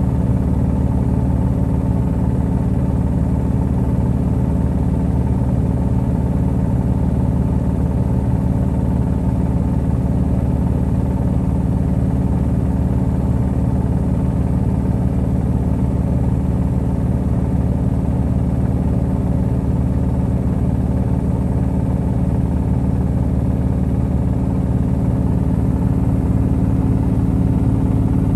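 Electrolux EWT1567VIW top-loading washing machine spinning its drum at a steady speed, a loud, even motor hum and whir with no pauses or changes in speed.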